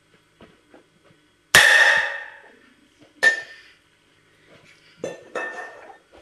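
Four metallic clangs from a metal pot lid being struck, each ringing on. The first, about a second and a half in, is the loudest and rings for about a second; another comes near the middle, and two come in quick succession near the end.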